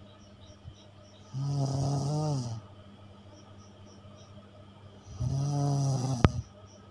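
A sleeping person snoring: two long, deep snores about four seconds apart, the second ending in a sharp click.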